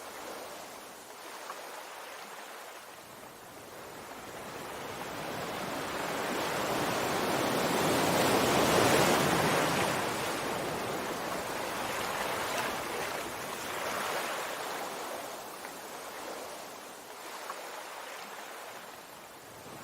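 Sea waves washing on the shore: the surf noise builds slowly to a peak about halfway through, then ebbs away.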